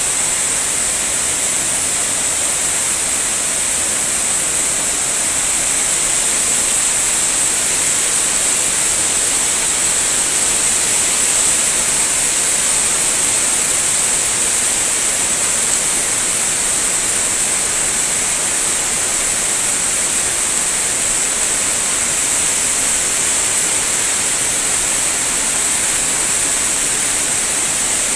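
Floodwater rushing fast across railway tracks: a steady, loud hiss of moving water that does not let up.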